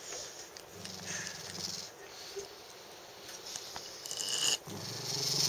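Shiba Inu growling low: a short growl about a second in, then another starting near the end.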